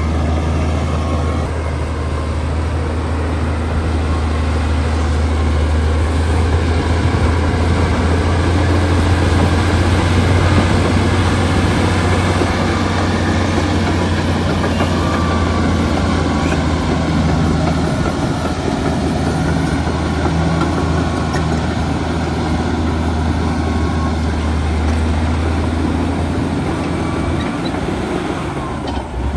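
Heavy diesel engine of earthmoving machinery running steadily under load, with a strong low drone that swells slightly midway.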